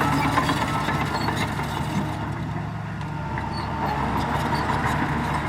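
Heavy diesel engines of earthmoving machinery (bulldozer and dump trucks) running steadily.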